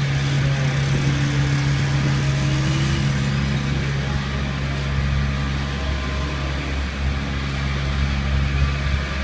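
Heavy truck's diesel engine idling with a steady low hum, over street noise.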